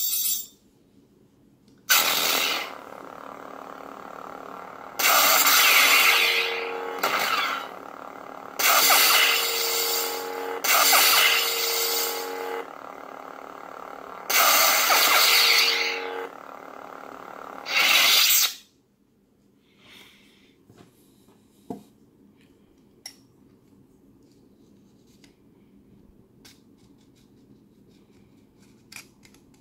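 Lightsaber soundboard (Plecter Labs Crystal Focus V9) sounding through the hilt's small speaker. It ignites about two seconds in and settles into a steady electric hum. Five loud sound-effect bursts play over the hum, and just after halfway it plays the blade retracting and cuts off. After that come only faint clicks of metal parts being handled as the hilt is twisted apart.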